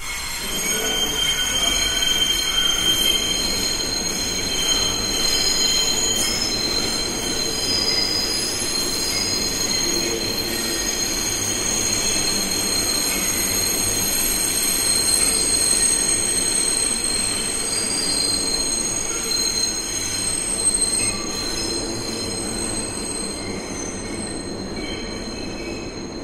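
New York City subway train braking, its steel wheels squealing on the rails in several high, steady tones that come and go and overlap, over the rumble of the moving cars. The sound eases a little over the last few seconds.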